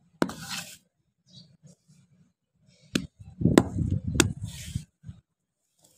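A hand rubbing, patting and smoothing damp soil flat in a raised planting bed. There is a sharp knock at the start, a quiet gap, then three sharp knocks with rough scraping about three to five seconds in.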